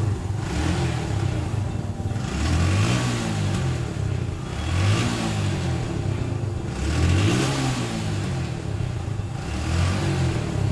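A motorcycle engine with a misfire fault, running and revved up and down several times, roughly every two seconds.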